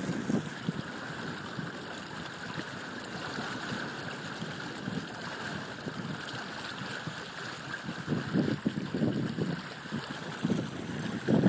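Water rushing along the hull of a Django 7.5 sailboat under sail, with wind on the microphone. The rush swells for a moment about eight seconds in.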